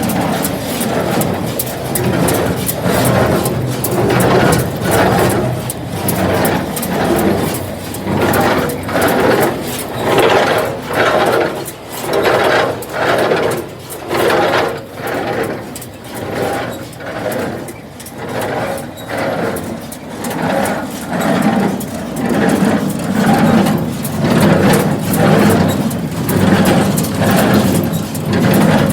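2007 John Deere 348 wire-tie square baler running, its mechanism cycling in an even rhythm a little faster than once a second over a steady engine hum.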